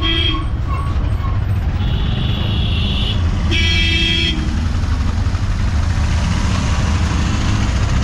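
Auto-rickshaw engine running with a steady low rumble in street traffic while vehicle horns honk: a short toot at the start, a long horn of about a second around two seconds in, and another shortly after.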